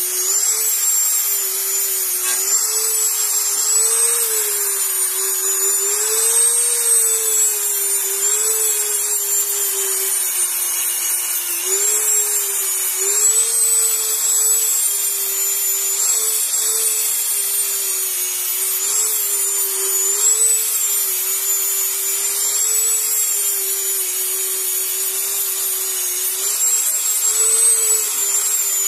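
Dremel rotary tool running at high speed with a sandpaper flap-wheel bit, sanding paint off a motorcycle frame tube. Its steady whine wavers slightly in pitch as the bit is pressed and moved, over a gritty abrasive hiss.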